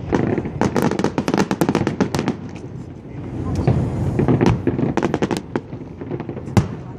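Aerial fireworks going off in rapid volleys of sharp bangs and crackles, packed close together in the first two seconds and again in the middle, with one loud bang near the end.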